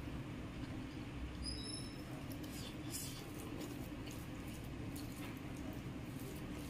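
Hand-eating sounds: fingers mixing and squeezing cooked rice on a plastic plate, with soft wet squishing and mouth chewing sounds, over a steady low background hum.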